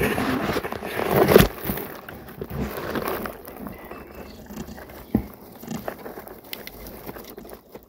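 Dry straw nesting rustling and crackling as a hand works through it around a broken eggshell. The noise is loudest in the first second and a half, then thins to scattered light crackles, with a sharp click about five seconds in.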